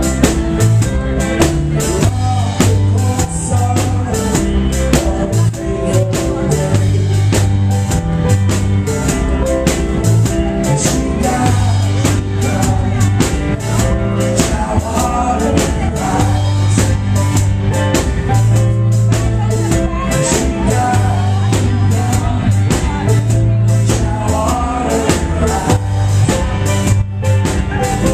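Live rock band playing loud: electric guitars, bass guitar, keyboard and a drum kit keeping a steady beat.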